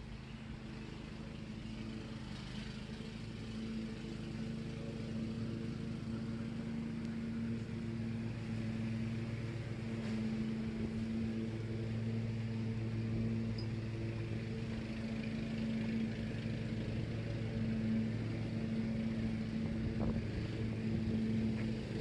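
A vehicle engine running at a steady pitch, slowly getting louder over the stretch.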